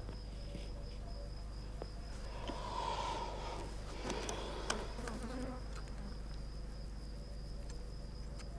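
Insects in a meadow: a steady high-pitched insect tone, with a flying insect buzzing past from about two and a half seconds in. There are a few faint clicks.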